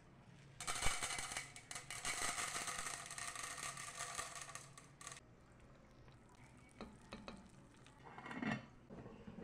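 Popcorn kernels poured from a cup into a pot of melted margarine, with a faint sizzle and the rattle of the kernels. It goes quieter after about five seconds, then a few light metal clinks near the end as the lid goes onto the aluminium pot.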